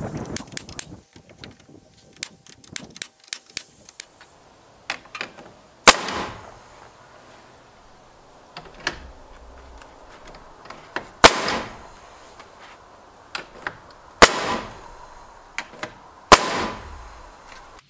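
Pneumatic framing nailer firing nails into wooden framing: four loud, sharp bangs several seconds apart, about 6, 11, 14 and 16 seconds in, with lighter clicks and knocks as the tool is set against the wood between shots.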